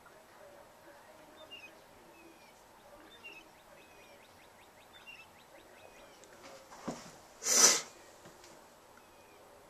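Faint, scattered high chirps of small birds over quiet background, then, about three-quarters of the way through, a short loud rush of noise close to the microphone, just after a single click.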